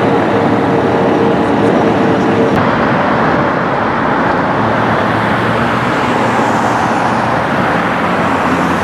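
Steady freeway traffic noise, a constant rush of passing vehicles. A steady hum stops suddenly about two and a half seconds in.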